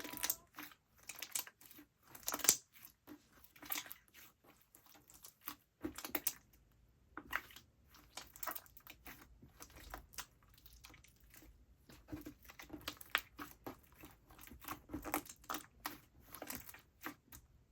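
Slime being pressed and squished by hand, giving a run of irregular crackling, crunching pops in uneven clusters with short pauses between.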